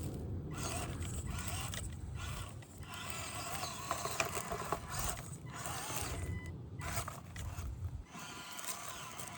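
Micro RC crawler's Injora 050 brushed motor and geared drivetrain whining and grinding as it crawls over rocks, the whine rising and falling with the throttle. The low rumble drops away about 8 seconds in.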